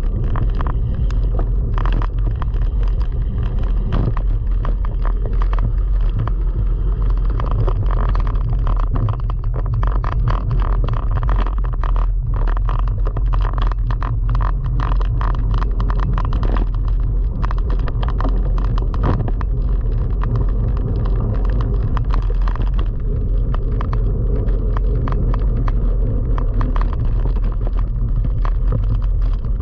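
Cyclo-cross bike ridden fast over a bumpy grass-and-dirt track: a steady low rumble of tyres and air rushing past, with constant irregular rattling and knocking as the bike jolts over the ground.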